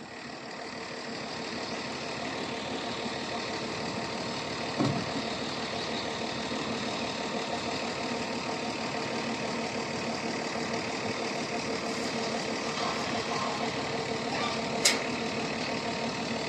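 Excavator diesel engine running steadily, building up over the first couple of seconds, with a single knock about five seconds in and a sharp metallic click near the end.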